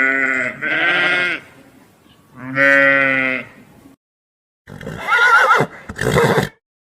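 Bleating farm animal giving three long calls, two back to back and one after a short pause. After a sudden break, a different animal gives two short calls, the first with a quavering, wavering pitch, cut off abruptly.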